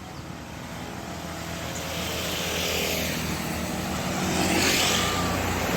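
A road vehicle approaching and passing: engine and tyre noise swells steadily and is loudest about four to five seconds in.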